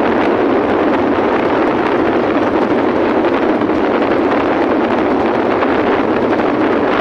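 Steady wind rush on the microphone of a moving vehicle, with road noise from the wet asphalt mixed in and no distinct engine note.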